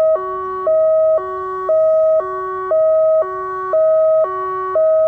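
Federal Signal Modulator 1004 electronic siren sounding a hi-lo tone: two pitches alternating about every half second, the higher one louder. It is the chemical spill alert tone, sounded as a test between spoken alert messages.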